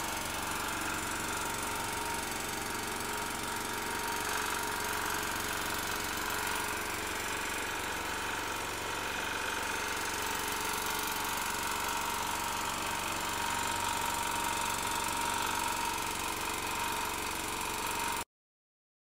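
Portable petrol generator converted to run on cooking gas (LPG), its engine running steadily on gas alone with the petrol tank shut off. The sound cuts off suddenly near the end.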